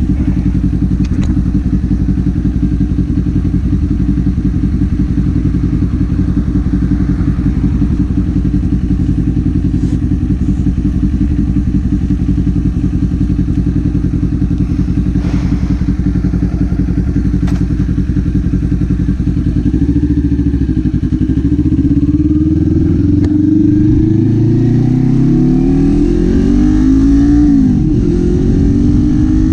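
Kawasaki Z400 399 cc parallel-twin engine and exhaust holding a steady low speed, then from about two-thirds of the way through revving up as the bike accelerates, with a sharp drop in pitch at a gear change near the end before it climbs again.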